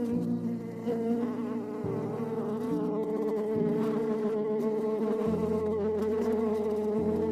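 Flying insects buzzing: a steady, slightly wavering drone, with lower hums that shift in pitch every second or two.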